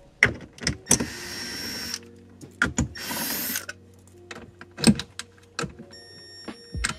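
Cordless driver with a 7 mm socket whirring in two short bursts as it backs out the radio's mounting screws. Sharp clicks and knocks of the tool and screws against the metal radio bracket come between the bursts.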